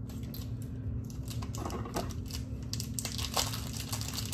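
Plastic wrapper on a block of sharp cheddar being crinkled and peeled open by hand: a run of small, irregular crackling rustles starting about a second in.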